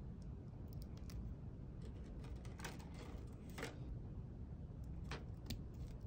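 Faint small clicks and rustles of fingers handling wires and pushing a stripped copper wire into a plastic Ideal push-in wire connector, over a low steady room hum.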